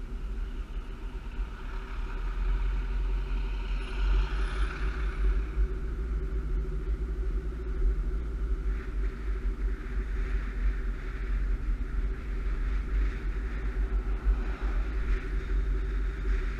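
Car driving along a road, heard from a camera mounted on the car: a steady heavy low rumble of wind and road noise with a constant hum. A louder swell of noise rises and fades about four to five seconds in.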